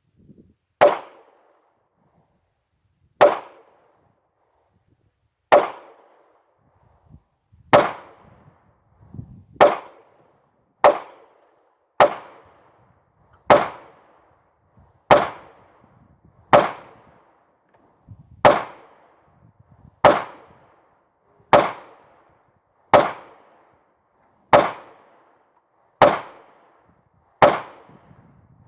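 A Ruger SR9C compact 9mm pistol fired seventeen times in slow, deliberate fire, one sharp shot every one to two and a half seconds, each with a short ringing tail.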